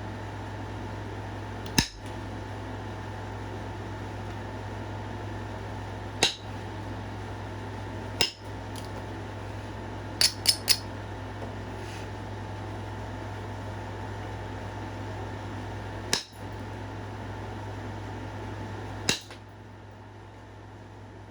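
Flintknapping: sharp clicks as flakes are taken off a stone point, about eight in all, three of them in quick succession near the middle. A steady fan-like hum runs underneath and drops away near the end.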